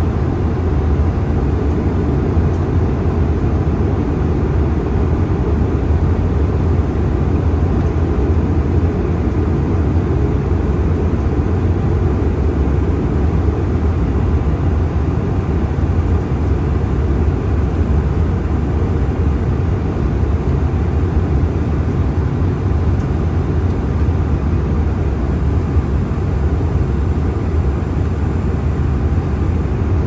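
Steady in-flight cabin noise of a CRJ-900 regional jet on its approach: a constant low rumble of airflow and the two rear-mounted turbofan engines, heard from inside the cabin.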